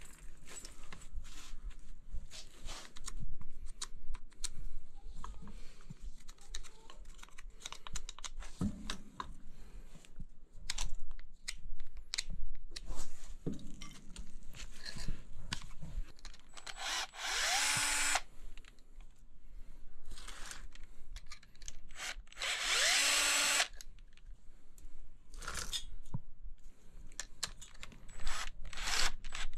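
Cordless drill/driver running in two short bursts of about a second each in the second half, each spinning up with a rising whine and then holding, with another burst starting right at the end. It is working the bolts on a furnace blower motor's mounting bracket. Before the bursts come light clicks and clatter of tools and metal parts being handled.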